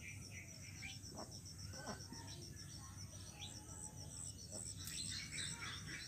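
Birds chirping in short, scattered calls, busier in the second half, over an insect's fast, even, high-pitched pulsing and a low hum.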